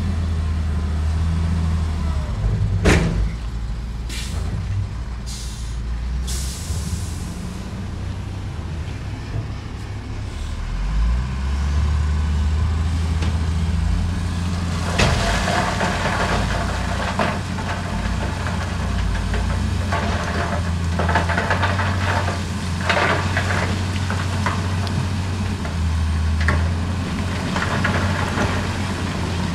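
Heavy diesel earthmoving machinery running steadily, with short sharp air hisses a few seconds in, typical of a dump truck's air brakes. From about halfway, a rough irregular clatter and grinding of stones over the engine.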